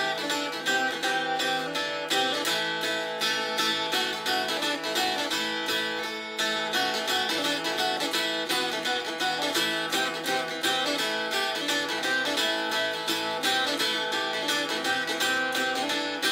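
Phin, the Isan plucked lute, played solo with a pick: quick runs of plucked notes over a steady drone.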